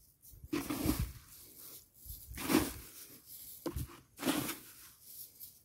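Handfuls of dry rice husk being scattered over a freshly sown vegetable bed, making about five short rustling swishes roughly a second apart.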